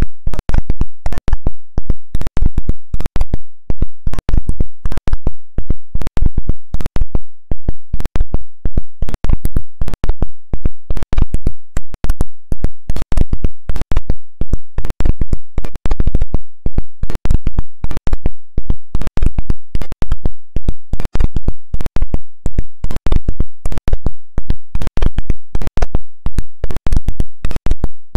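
Live cuarteto band music played through the PA, overloading the recording into harsh, crackling distortion. It pulses with the beat about four times a second.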